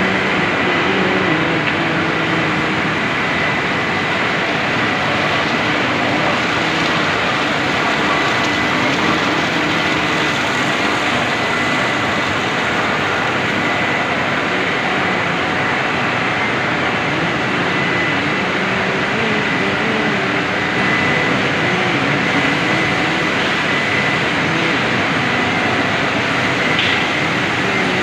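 Plastic-making machine running: a steady, loud mechanical din with a thin, steady high whine.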